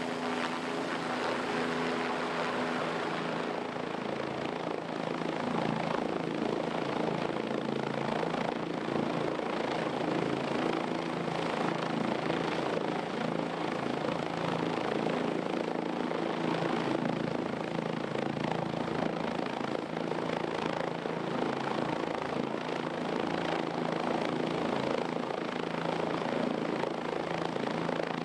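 Helicopter hovering overhead with a load on its sling line: a steady, continuous rotor and engine noise with a low, even hum.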